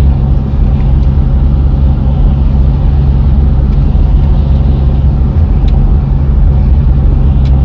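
Car engine and tyre noise heard from inside the cabin while driving at a steady speed, a constant low drone with no change in pitch.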